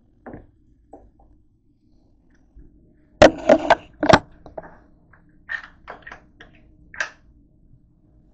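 Kitchen handling noise: a quick cluster of loud knocks and clatter about three seconds in, then a few lighter clicks and rattles.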